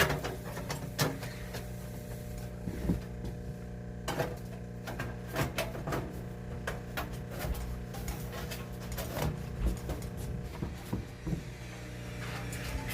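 Irregular clicks and knocks over a steady low hum.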